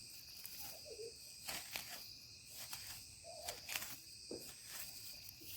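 Steady high-pitched insect trill, cricket-like, holding several fixed pitches, with scattered faint clicks and knocks.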